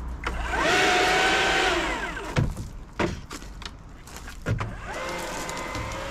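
A battery leaf blower gives a short burst: its whine rises quickly, holds level for about a second and falls away. A few sharp knocks follow, and near the end another steady whine rises and holds.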